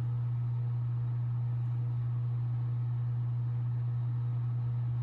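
Steady low hum, unchanging throughout, with no tapping or other events on top.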